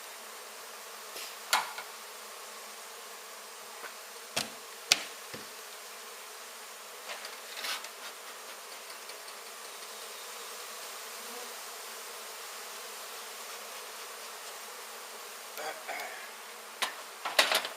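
Mass of honey bees buzzing steadily around an opened hive, with several short sharp knocks over it.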